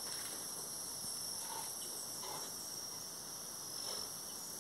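Insects chirring steadily in a continuous high pitch.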